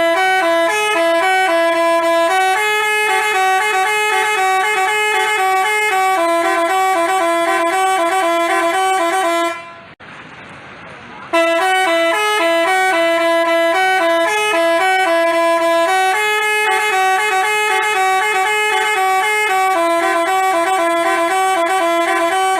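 Basuri telolet multi-tone bus horn playing a tune of held, stepping notes. It breaks off briefly about halfway through, then plays the same tune again.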